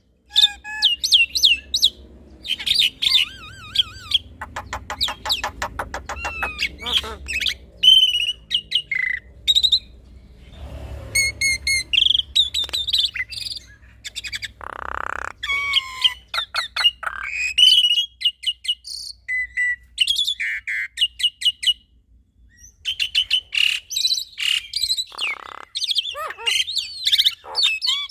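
A male black-winged starling and a female Javan myna singing together, a busy, varied stream of sharp whistles, chirps and rapid trilled runs.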